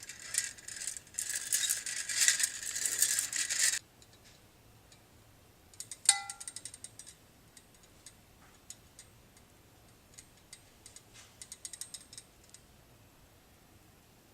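Rapid clattering of kitchen utensils for about four seconds, then a single ringing clink about six seconds in, followed by scattered light clicks and taps.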